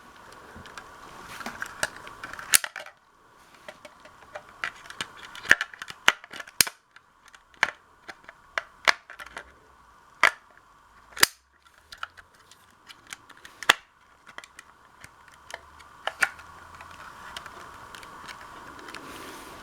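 A series of irregular sharp clicks and taps, about a dozen loud ones spread unevenly through the stretch, over a faint steady hum.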